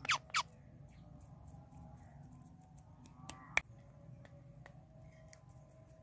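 Indian ringneck parrot mostly quiet: a few short clicks right at the start, then one brief soft call ending in a sharp click a little past three seconds in, over faint outdoor background.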